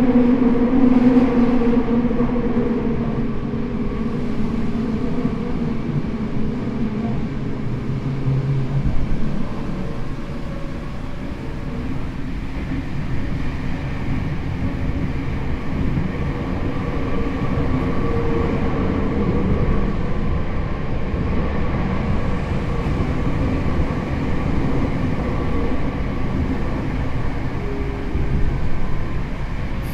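Tokyo Metro 7000 series electric train, with a Mitsubishi IGBT VVVF drive and 160 kW traction motors, running between stations, heard from inside the passenger car. A steady rumble of wheels on rail, with a motor hum that is strong in the first several seconds and then fades.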